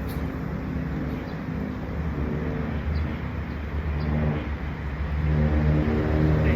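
A motor vehicle's engine running, its low hum growing louder over the last couple of seconds.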